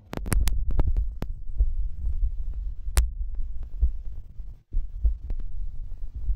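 Low rumbling noise on the phone's microphone, with several sharp clicks in the first second and one more about three seconds in.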